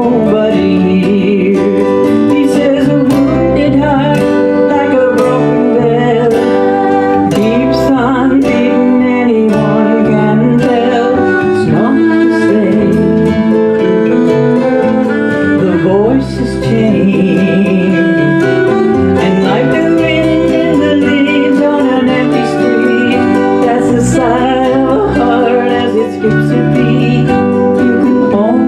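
Live acoustic folk-country band playing: acoustic guitar and bass under a violin whose melody lines waver and glide. The music runs steadily throughout.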